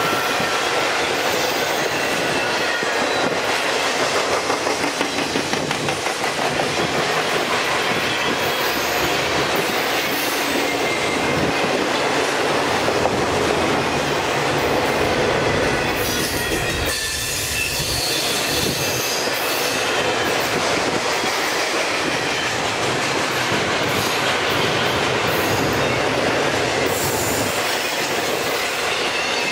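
CSX double-stack container freight cars rolling past on curved track: a continuous rumble of steel wheels on rail, with high wheel squeal from the curve and clicking over the rail joints. It eases briefly a little past halfway.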